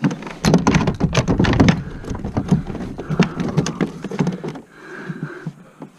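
A clatter of knocks, taps and rattles on a plastic kayak as things are handled on deck. It is densest and heaviest in the first two seconds, then thins to scattered taps.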